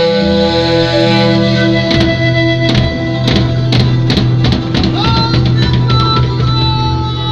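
Andean folk band playing live through a stage PA during a sound check: long held melody notes over guitar and drum hits, with a note sliding down near the end.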